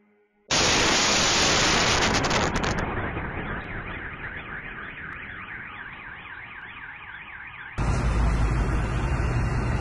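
A sudden loud explosion blast about half a second in, followed by car alarms set off by it, wailing with a rising and falling tone about two to three sweeps a second. About eight seconds in a second burst of loud low rumbling comes in.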